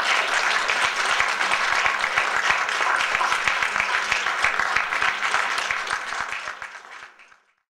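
Audience applauding: many hands clapping in a dense, steady patter that fades away near the end.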